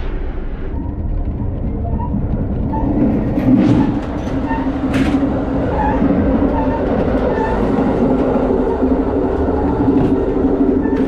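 Amtrak passenger train running on the rails, heard from inside a passenger car: a steady low rumble with a steady hum that grows louder about three seconds in, and a few short clicks.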